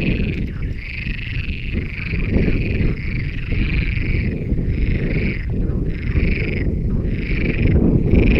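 Frogs calling in a chorus of short rhythmic croaks, about one and a half a second, over wind rumbling on the microphone.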